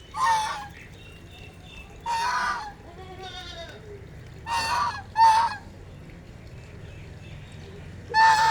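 Domestic ducks quacking: five loud, harsh single calls, about half a second each and a second or two apart, with a softer, raspier call between the second and third.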